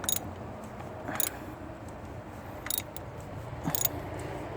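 A handful of sharp, isolated metal clicks about a second apart: the ratchet and 32 mm socket working on the plastic oil filter housing cap as it is snugged down.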